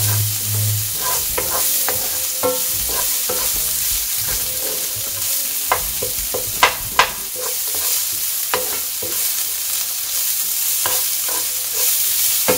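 Chopped vegetables sizzling in olive oil in a non-stick frying pan while being stir-fried with a wooden spatula, which clicks and scrapes against the pan again and again. The two sharpest knocks come close together just past halfway.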